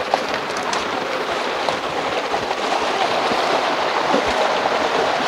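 Steady rush of flowing water, a continuous even hiss with no breaks.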